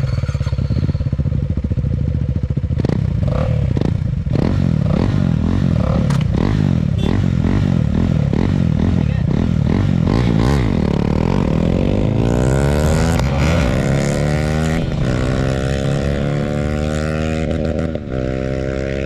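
A KTM Duke's single-cylinder engine with its exhaust removed, running loud and unsilenced on a flyby. It runs choppy at first, then the revs climb steadily through the second half, with a brief drop near the end.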